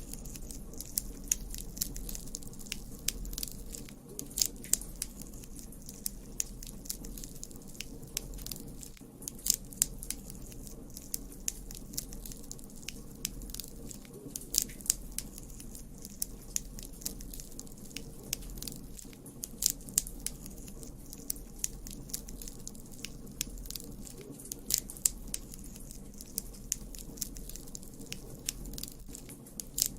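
Campfire burning, with a steady low rumble and frequent sharp, irregular crackles and pops of burning wood.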